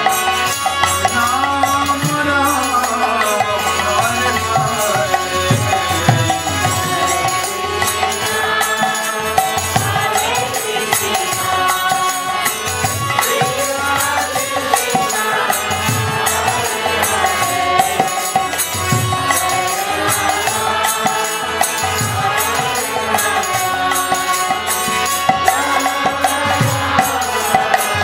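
Bhajan: a male voice chants a devotional melody to a harmonium, over a steady rattling percussion beat.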